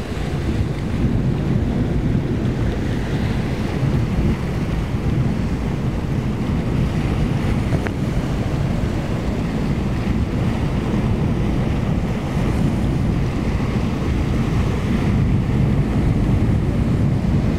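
Strong wind buffeting the microphone over a steady wash of breaking waves and surf in rough, choppy water.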